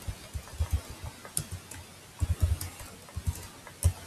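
Typing on a computer keyboard: irregular key clicks, some with a dull thump, at an uneven pace.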